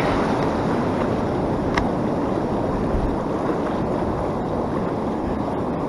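Ocean surf washing steadily in the shallows, with wind on the microphone.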